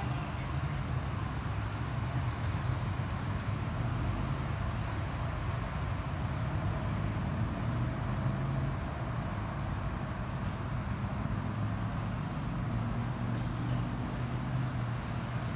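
Steady low engine rumble with outdoor background noise, level throughout with no distinct events.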